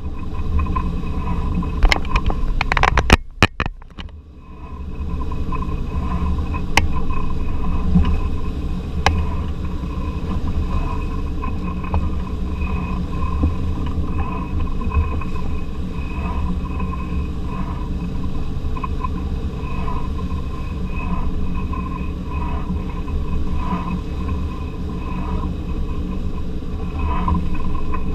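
A fishing boat's engine running steadily with a low hum. There are a few sharp knocks in the first three seconds and a brief drop in level about four seconds in.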